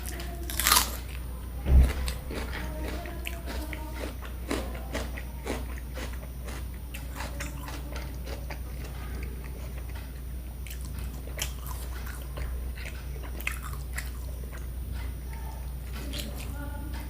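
Close-miked eating: a person biting and chewing crunchy fried food with a run of crisp crunches and mouth clicks. A loud low thump about two seconds in.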